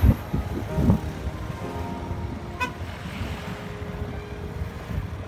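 Motor vehicle running with a steady low rumble and a couple of thumps in the first second, and a brief high horn toot about two and a half seconds in.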